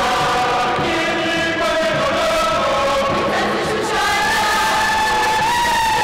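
Choir singing a church hymn in long held notes.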